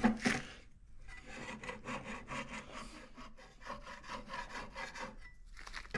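A hand scraper pushed over wood, lifting old finish softened by chemical stripper, in a quick series of short scraping strokes with a brief pause near the end.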